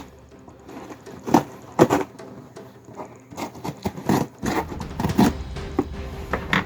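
Cardboard toy packaging being handled: irregular knocks, taps and scrapes.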